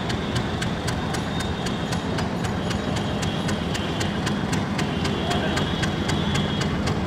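EMD diesel-electric locomotive engine running at low throttle as the lone locomotive rolls slowly along the tracks: a steady low rumble with a fast, even ticking over it.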